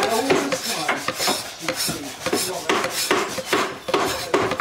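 A hand tool scraping and rasping on wood in quick repeated strokes, about three a second.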